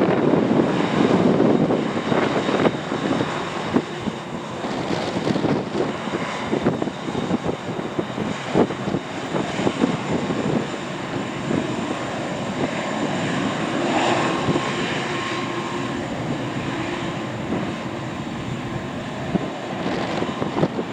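Airbus A380's four jet engines running: a steady rushing drone full of crackle, loudest at the start and easing a couple of seconds in.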